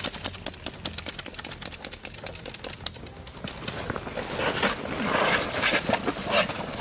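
Airsoft guns firing, a fast rattle of clicking shots for about the first three seconds. After that the clicks stop and a rough scuffling and rustling of players running takes over, loudest near the end.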